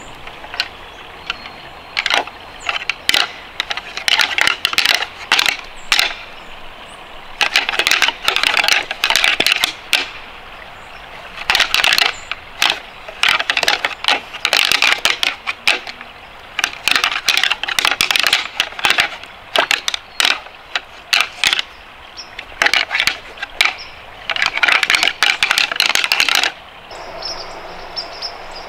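Footsteps crunching and crackling through dry leaves and twigs, in irregular bouts of a few steps with short pauses between. A steady high tone comes in near the end.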